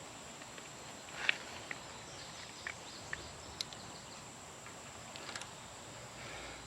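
Faint, scattered clicks and light taps of hand tools and parts being handled on a mower engine, over a steady high insect-like hum from the surroundings.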